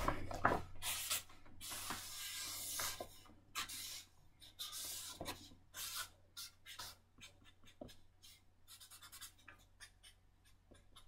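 Pen drawing on paper: a run of scratchy strokes, longer and denser in the first few seconds, then shorter, sparser strokes that grow faint near the end.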